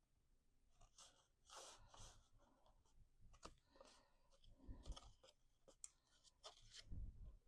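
Faint rustling, crinkling and light ticks of cardstock being handled and folded, with soft low thumps about five and seven seconds in.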